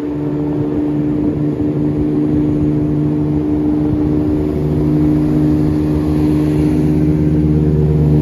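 East Midlands Railway Class 170 Turbostar diesel multiple unit pulling slowly along the platform close by, its underfloor diesel engines running with a steady drone.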